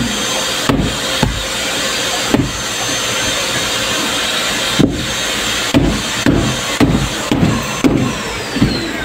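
Dull thumps over a steady, loud background noise, about ten in all, coming roughly twice a second in the second half.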